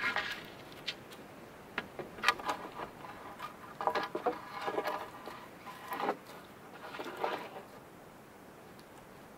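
A series of irregular sharp knocks, each followed by a brief ringing tone, fading out near the end.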